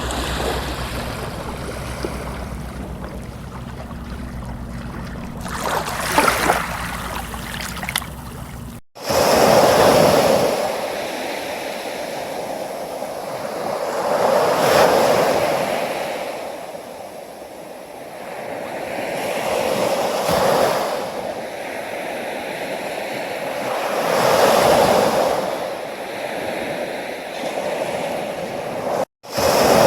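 Sea waves breaking and washing up the shore, swelling and fading about every five seconds. It follows a steadier stretch of trickling water over a low hum that cuts off suddenly about nine seconds in.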